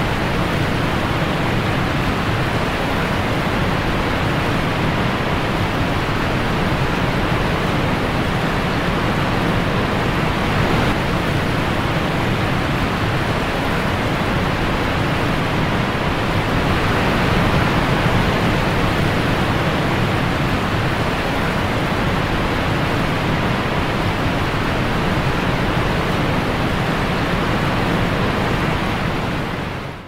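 A waterfall pouring down a rock face: a steady, even rush of falling water, swelling slightly about halfway through.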